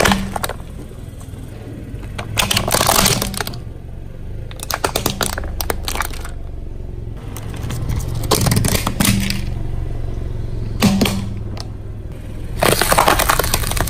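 A car tyre crushing brittle plastic objects such as a plastic toy: a string of about six cracking, crunching breaks, roughly every two seconds, over the car's steady low engine hum.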